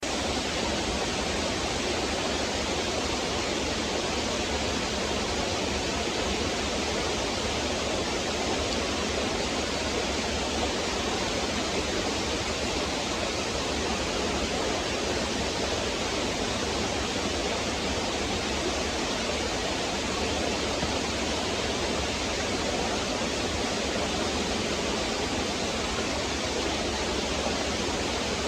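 Stream water running and splashing over rocks in a steady, even rush.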